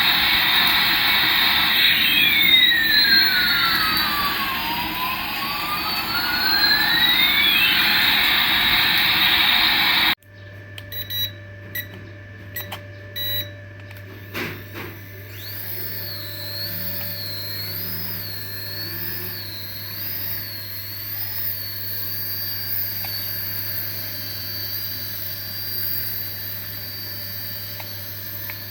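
A toy airplane's electronic jet-engine sound effect plays loudly through its small speaker as a steady hiss with a sweeping pitch. About a third of the way in it cuts off suddenly. It is followed by a low hum, several clicks, and then a faint warbling electronic tone.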